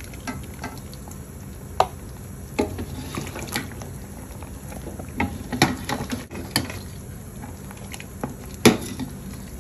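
Broth of beef feet at a rolling boil in a large stainless-steel pot, bubbling steadily, while a metal spoon scoops through it and knocks against the pot every second or so. The loudest knock comes near the end.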